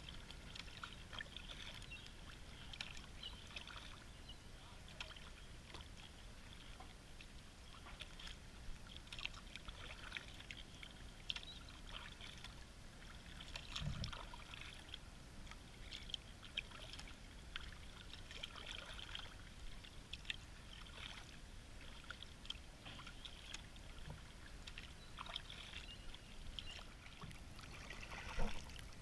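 Kayak paddling on calm water: faint drips and small splashes from the paddle blades. There is a dull knock about halfway through and a louder splash near the end.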